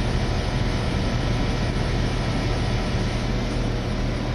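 Aircraft engine noise, running steadily: an even, unbroken rush with a constant low hum underneath.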